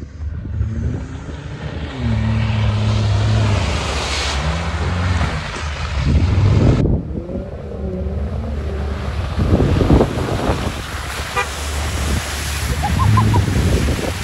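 Jeep Wrangler engine running and revving up and down several times as it works through mud.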